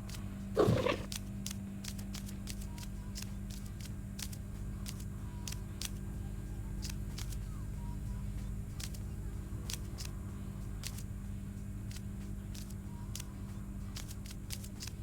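Domestic cat purring steadily close up. There is one short louder sound about half a second in and faint clicks throughout.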